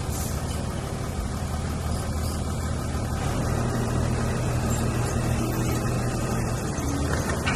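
Heavy diesel engine of earthmoving machinery running steadily, a little louder through the middle.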